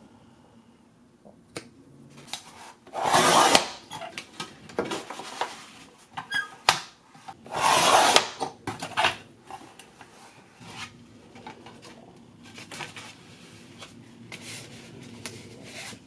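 Sliding paper trimmer cutting through sheets of watercolor paper in two strokes of about a second each, with light clicks and paper rustling from handling the sheets between them.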